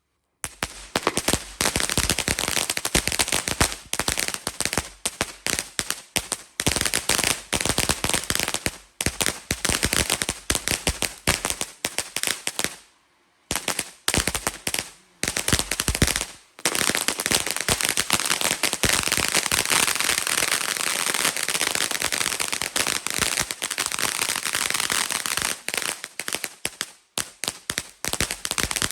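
Ground fountain firework burning with dense, rapid crackling pops. The crackle starts about half a second in, stops for about a second near the middle and dips briefly once more before it runs on thickly.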